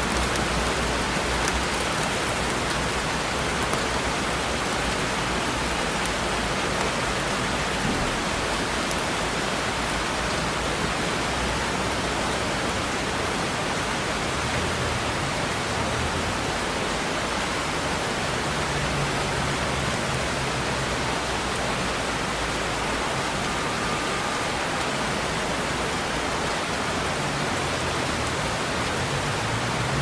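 Rain storm: steady falling rain, an even hiss without a break. A faint low rumble rises under it about nineteen seconds in and again near the end.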